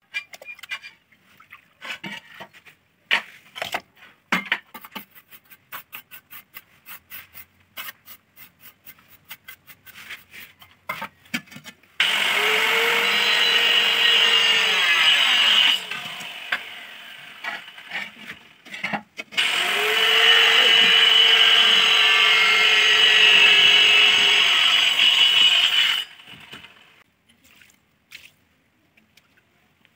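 Light scattered taps and clicks of tiling work, then a handheld electric power tool run twice, first for about three and a half seconds and then for about six and a half, its motor pitch rising as it spins up and dropping as it winds down.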